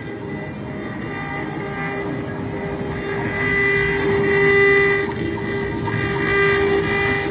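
CNC router spindle running at a steady high pitch while the bit cuts the workpiece, the cutting noise swelling and easing, loudest about four to five seconds in.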